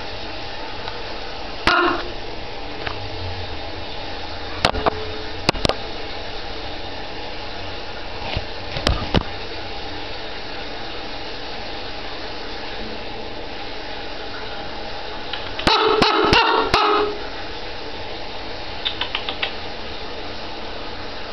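Common raven calling close up: one short call about two seconds in and a longer run of calls around sixteen seconds, with a few sharp clicks in between.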